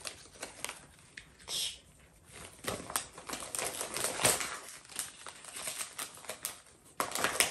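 Gift wrapping paper crinkling and rustling as a present is unwrapped by hand, in quick irregular crackles that get busier after a couple of seconds.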